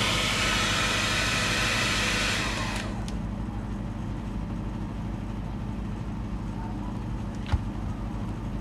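Hair dryer blowing with a steady rush, switched off about two and a half seconds in and dying away within half a second. A low steady hum remains, with a single click about three-quarters of the way through.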